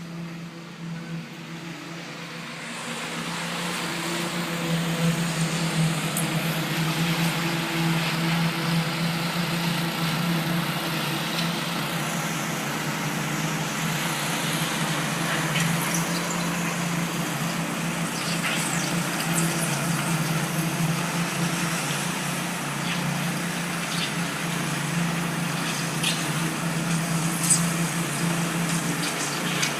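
Construction machinery running: a steady engine drone with a low hum, growing louder about three seconds in, with occasional sharp clanks.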